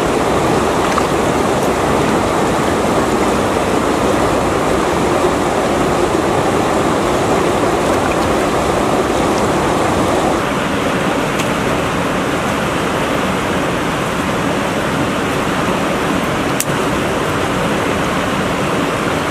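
Steady rush of flowing river water, a little duller from about halfway through.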